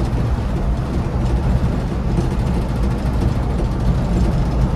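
Scania bus on the move: a steady low rumble of engine and road noise with no changes.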